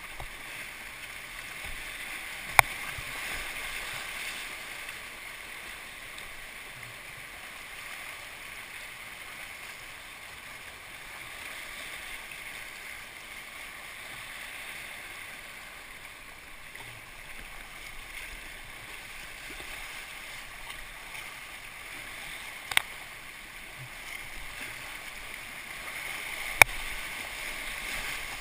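Whitewater rushing and splashing steadily around a kayak running a river rapid, with three sharp knocks, one a few seconds in and two near the end.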